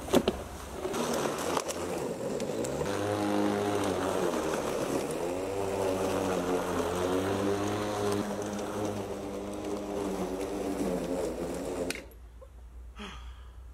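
Greenworks electric lawn mower running as it is pushed through grass, its motor hum wavering gently in pitch under the changing load of the cut. The sound drops away sharply about twelve seconds in.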